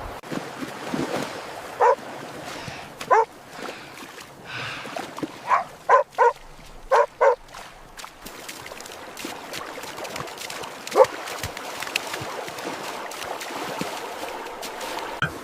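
A dog barking in short single barks: one about two seconds in, another a second later, a quick run of five in the middle, and a last bark about eleven seconds in.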